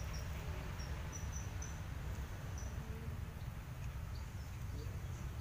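Crickets chirping in short, high notes, a few in quick succession every second or so, over a steady low rumble.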